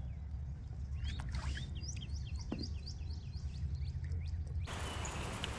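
A songbird singing a fast run of short downward-slurred chirps, about four a second, over a steady low rumble. Near the end the sound changes abruptly to an even hiss.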